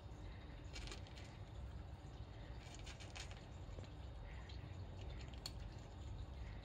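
Cat crunching dry kibble: faint clusters of small crisp clicks, about three bouts, over a low steady rumble.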